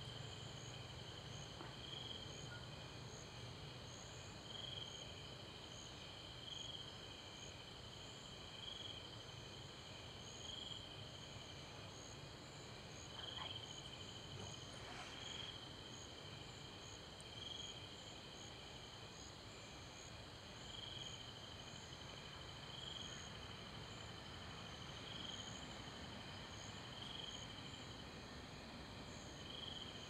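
Insect chorus: a steady high-pitched trill that swells about every two seconds, over a higher, faster chirping.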